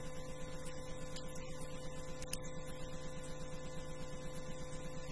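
Steady electrical hum and buzz with a fast, even flutter, and one faint click a little over two seconds in.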